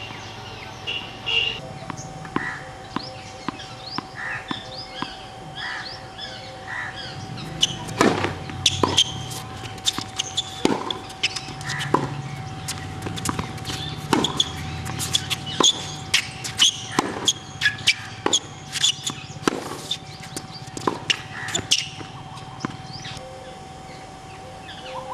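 Tennis balls struck by rackets and bouncing on an outdoor hard court during a rally: sharp pops that come thick and fast from about a third of the way in, with birds calling in the background.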